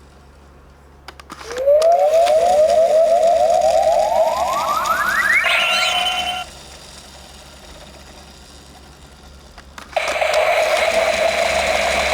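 Electronic sound effects from a Bandai Legend Rider Series transformation belt toy. After a click, a whirring chirp repeats faster and faster while rising in pitch, ends in a held high tone and cuts off suddenly. After a pause of a few seconds, a steady whirring hum starts.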